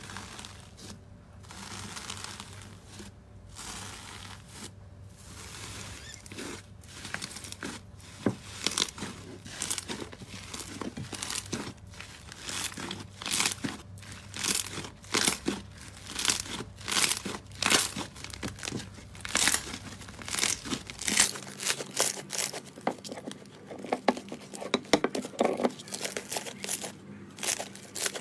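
Slime being squished and stretched, giving a run of sticky crackles and pops that grow denser and louder.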